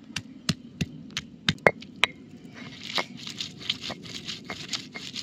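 Stone roller crushing onion, garlic, ginger and tomato on a grooved stone grinding slab (pata and varvanta). For about the first two seconds it is knocked down on the slab about three times a second with sharp knocks. From about two and a half seconds in it is rolled back and forth with a wet rasping grind.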